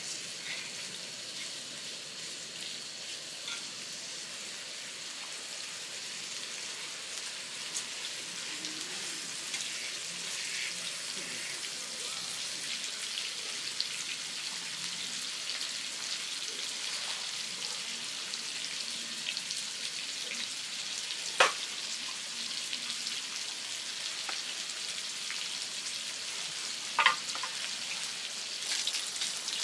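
Food frying in a pan, a steady sizzling hiss, with two sharp clicks in the second half.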